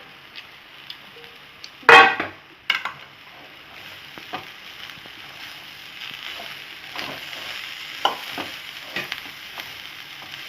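A spoon stirring boiled chickpeas and chopped vegetables in a pan on the stove, scraping and clicking against the pan over a low sizzle. There is a loud clatter about two seconds in, then a smaller one just after.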